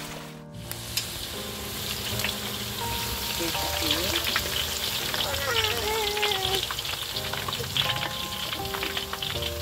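Cassava chips deep-frying in hot oil: a dense crackling sizzle that swells over the first couple of seconds and then holds steady.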